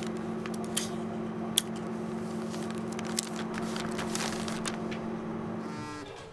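Sheet of paper crackling and crinkling under a hand against a notice board, with scattered sharp clicks over a steady low hum that stops near the end.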